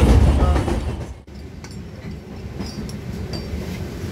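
Moving passenger train heard from inside the coach: a loud low running rumble that drops abruptly about a second in, at a cut, to a quieter steady rushing hiss with a few faint clicks and short high squeaks.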